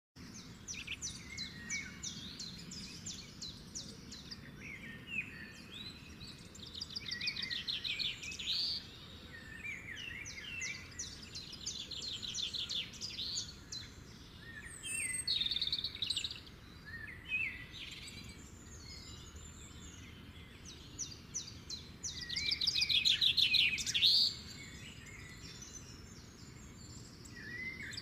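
Songbirds singing in short chirping and fast trilling phrases, one after another with brief pauses between them. The loudest stretch of song comes in the last quarter.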